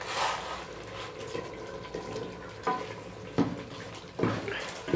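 Sliced raw potatoes tipped from a metal bowl into a pot of simmering curry with a wet splash, then a wooden spoon stirring them into the gravy, with a few sharp knocks in the second half.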